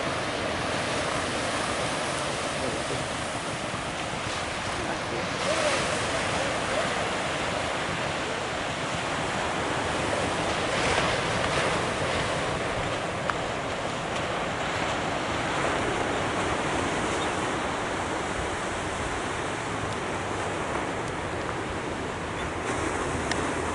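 Ocean surf breaking and washing on a beach, heard as a steady rushing noise, with wind buffeting the microphone. The noise swells briefly twice, a few seconds in and again about halfway through.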